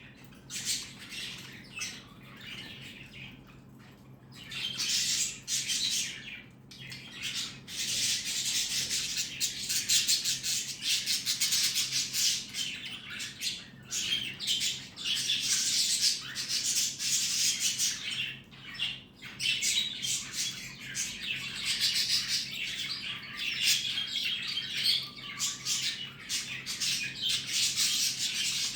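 Cockatiel chirping and squawking almost without pause, sparse at first and continuous from about five seconds in.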